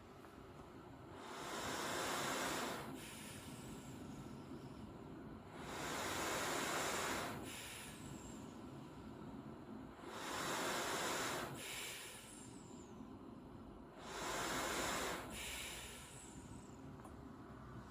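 Travel CPAP machine blowing air through a mask: a steady hiss that swells into a louder rush of air with each breath, four times, about every four seconds, each followed by a faint falling whistle.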